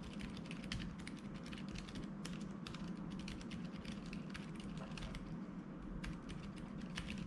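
Continuous quiet typing on a Keychron K3 ultra-slim low-profile keyboard with red optical switches: a fast, dense patter of soft key clicks.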